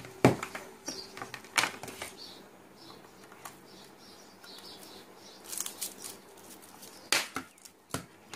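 Handling noises: a knock just after the start, then scattered clicks and the rustle of the clear plastic film wrapped around a portable hard drive, and two sharp plastic clicks near the end as a USB cable is fitted into the drive.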